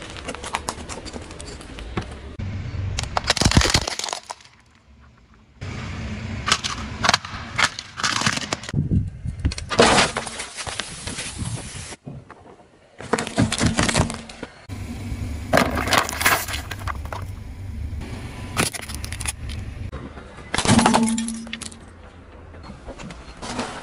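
A car tyre rolling over and crushing objects in a run of separate takes, with many sharp cracks and crunches: plastic disposable lighters cracking, matchboxes being squashed, and something green shattering like glass near the end.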